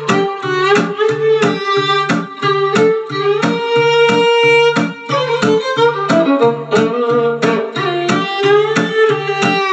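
Music: a violin melody over a plucked-string accompaniment and a steady percussion beat.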